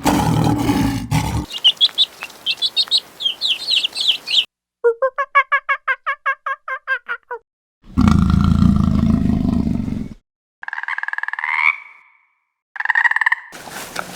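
A quick succession of different animal calls: a low roar at the start, then a run of high, quick chirps like a small bird, then a fast pulsing call of about eight notes a second. Another low, loud roar-like call follows about eight seconds in, then two short higher calls near the end.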